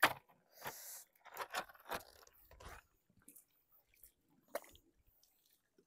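Long bamboo pole working a raft through the water: a sharp knock at the start, a short splash just after, then a handful of scattered wooden knocks and clicks as the pole is planted and pushed.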